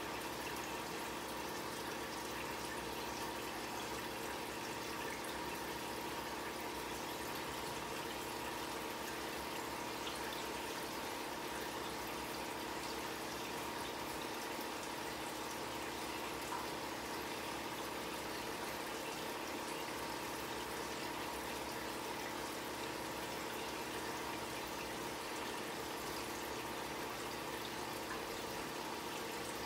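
Aquarium filter running: a steady trickle and splash of circulating water with a steady hum underneath.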